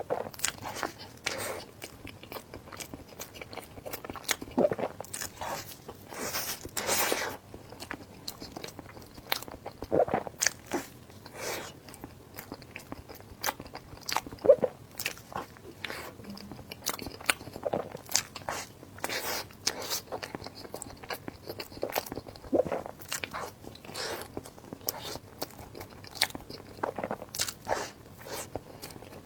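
Close-miked eating: irregular biting, crunching and chewing mouth sounds, with sharp clicks and a longer crunch about seven seconds in.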